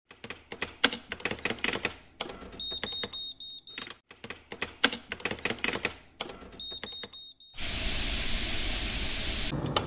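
Typewriter sound effect: two runs of rapid key strikes, each ending with the ring of the line-end bell. About seven and a half seconds in, a loud hiss of steam venting from a steam locomotive, lasting about two seconds before it cuts down and fades.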